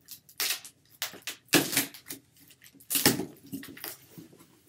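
Packing tape being ripped off a cardboard shipping box and its flaps pulled open: three loud tearing rips, the strongest about a second and a half and three seconds in, with lighter cardboard rustling between.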